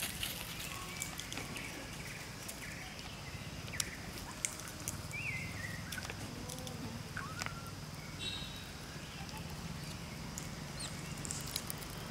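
Outdoor ambience with a steady low hum, scattered small clicks and rustles, and a few short high chirps around the middle.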